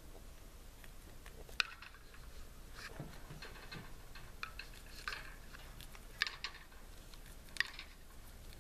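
Pet budgerigar giving short, sharp chirps, a handful of separate notes, the loudest about a second and a half in and twice near the end, with quieter clicks between them.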